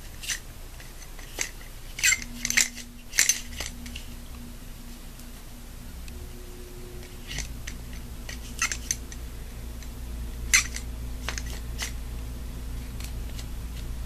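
Scattered light metallic clicks and scrapes of AR-15 parts being handled while a cleaning patch is run through the upper receiver, over a faint steady low hum.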